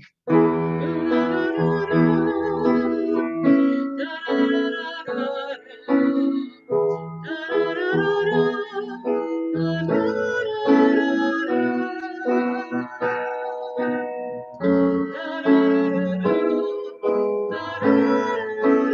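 A hymn sung with instrumental accompaniment, with sustained notes and a wavering singing voice.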